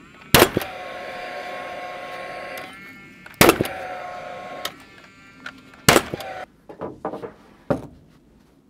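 Paslode XP cordless framing nailer, a combustion nailer run on a fuel cell, firing three nails into a truss's bottom chord. Each shot is a sharp crack followed by a steady whine from the nailer's fan. The whine runs about two seconds after the first shot and shorter after the later ones, and drops in pitch as it stops. A couple of lighter wood knocks come between the shots.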